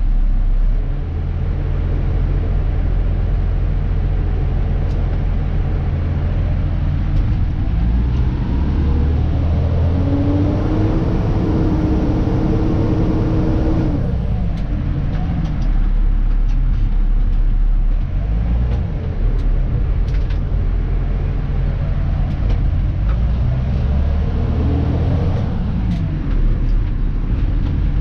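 Dennis Elite 2 garbage truck's diesel engine running, heard from inside the cab as a steady low drone. Its pitch rises as the truck pulls away, holds, then drops off suddenly about halfway through. It climbs again a few seconds before the end.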